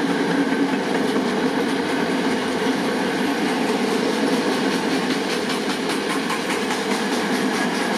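Freight train of timber-loaded stake wagons rolling past, a steady rumble of steel wheels on the rails. In the second half there is a faint regular clatter of wheels.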